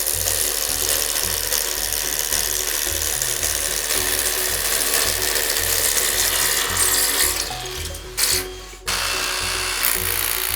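Power drill running in long, steady runs, driving screws into the wall to fix the screen tracks. It stops for about half a second near the end, over background music with a steady beat.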